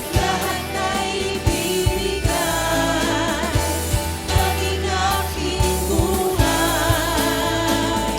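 Live worship music: voices singing over a band with bass and a steady beat of low drum hits.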